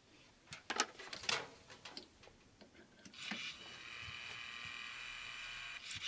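Wooden rope-skipping automaton's mechanism: a few sharp wooden clicks and knocks, then from about three seconds in a steady mechanical whirring rattle as the mechanism runs.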